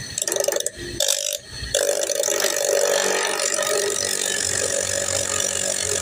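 Abrasive cut-off wheel cutting a hydraulic hose. Two short touches of the wheel in the first couple of seconds, then a steady grinding cut.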